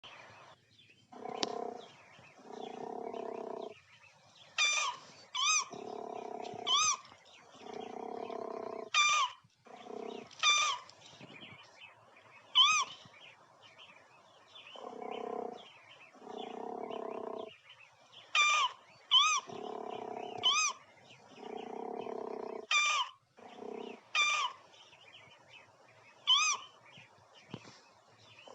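Animal calls: low, rough growl-like calls about a second long, mostly in pairs, alternating with short, sharp high-pitched calls, each high call rising and falling quickly.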